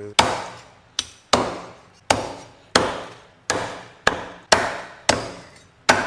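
Kitchen cleaver chopping on a wooden chopping board, about ten sharp strokes with uneven gaps of roughly half a second to under a second, each with a short ring.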